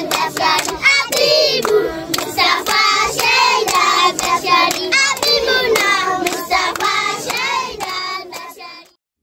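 A group of children singing together while clapping their hands in a steady rhythm; the sound fades out near the end.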